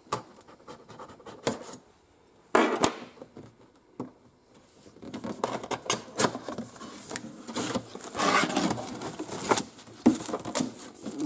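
Cardboard packaging being handled by hand: a box seal picked at and broken with sharp clicks and scrapes, then a cardboard box slid out of its outer carton, with a busy run of scraping, tapping and rustling.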